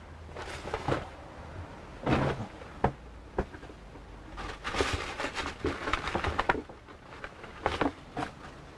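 Handling noises as things are moved about by hand: scattered light clicks and knocks, with brief rustling swishes about two seconds in and again about five seconds in.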